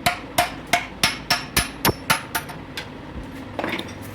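Hammer blows driving the low-high gear onto its shaft in a Powertrac 434 tractor gearbox, about three a second, each with a short metallic ring. The blows thin out and grow fainter in the last second or so as the gear seats.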